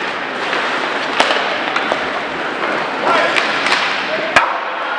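Ice hockey game sounds: a steady hum of crowd and rink noise with scattered voices, broken by several sharp cracks and knocks, the loudest about four and a half seconds in.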